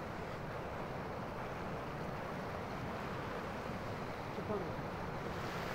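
Steady rush of glacial meltwater: the Ganga (Bhagirathi) river pouring out from under the Gaumukh glacier snout.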